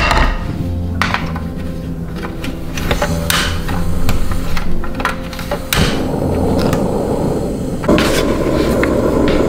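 A frying pan set down on a portable gas stove, then a few sharp igniter clicks. Near six seconds in the gas burner catches with a sudden, steady hiss of flame, which grows louder near eight seconds as the flame is turned up.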